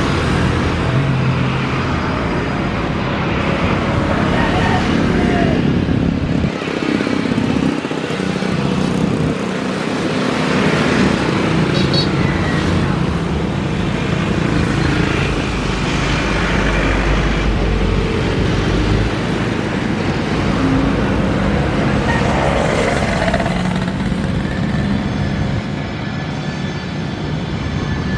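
Boeing 747-400's four jet engines at taxi power, a steady engine noise with a faint high whine, as the jumbo jet rolls along the taxiway.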